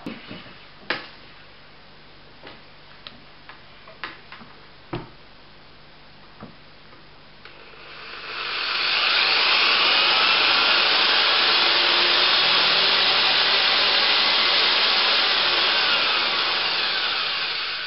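A few light handling knocks, then a power drill starts about eight seconds in and runs steadily for about nine seconds, spinning a speedometer cable that drives a motorcycle speedometer. The drill winds down near the end.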